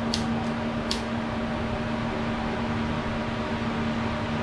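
Several sharp clicks in the first second, from a butane torch lighter being sparked to shrink heat-shrink tubing over a wire terminal. A steady machine hum runs underneath.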